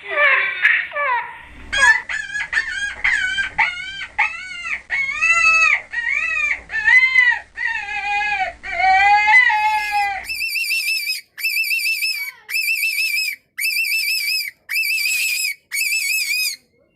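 A series of high-pitched, squeaky animal calls: short falling chirps, then arched calls over a low hum, then from about ten seconds in a string of identical, evenly spaced higher calls with short silent gaps.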